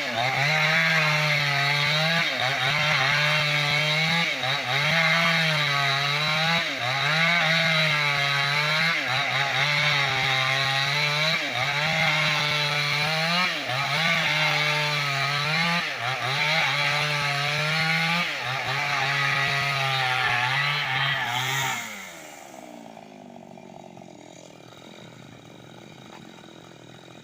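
New West 568 chainsaw running at full throttle, cutting a bayur log lengthwise into planks; its pitch dips and recovers every second or two as the chain bogs in the cut. About three-quarters of the way through, the throttle is released and the saw drops to a quiet idle.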